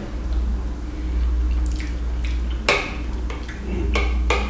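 A metal spoon scraping and clinking against a glass bowl while scooping food, with three sharp clinks in the second half and a few fainter ticks before them. A steady low hum runs underneath.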